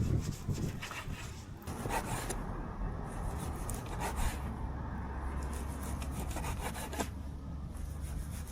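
Kitchen knife slicing raw beef on a cutting board: repeated scraping strokes with a few sharper knocks of the blade on the board.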